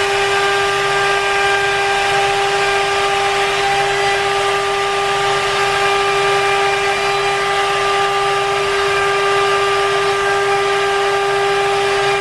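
CNC router spindle running at a steady pitch as it cuts a plywood boat panel: a constant high-pitched whine over a dense hiss.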